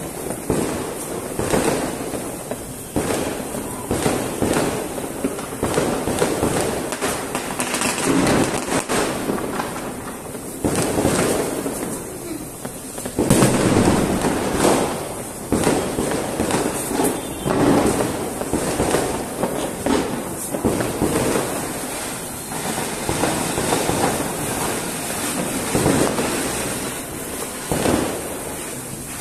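Ground fountain fireworks (flower pots) hissing and crackling as they spray sparks, mixed with repeated firecracker pops and bangs.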